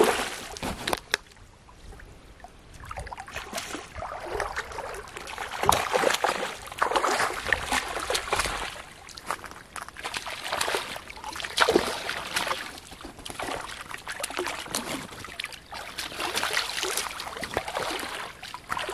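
A large hooked fish thrashing and splashing at the water's surface, with irregular sloshing as a man wades through shallow water to land it; the biggest splash comes right at the start.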